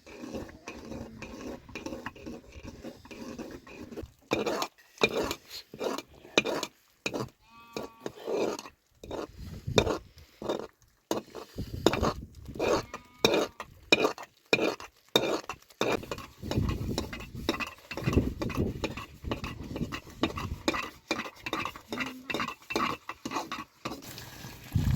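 Metal utensils clinking and scraping against pots and dishes in a run of irregular knocks and scrapes, with heavier low thumps in the second half.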